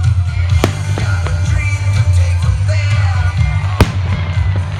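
Music playing loudly with fireworks going off: two sharp bangs, one under a second in and a louder one near the end.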